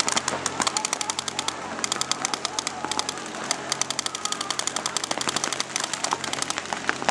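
Paintball markers firing rapid strings of shots: many sharp, overlapping pops a second, uneven in rhythm, with no break.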